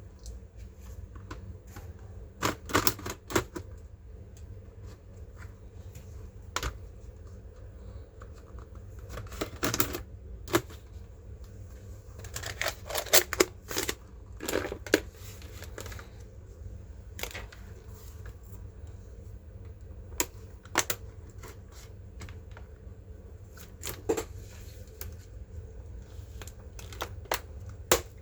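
Scattered sharp clicks and light taps of small hard plastic and metal parts being handled, some alone and some in short clusters a few seconds apart, over a steady low hum.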